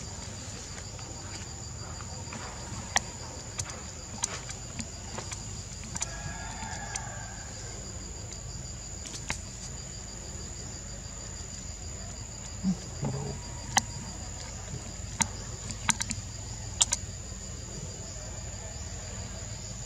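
Insects shrilling steadily in an even, high tone, with scattered sharp clicks and crackles, like twigs and dry leaves, through it.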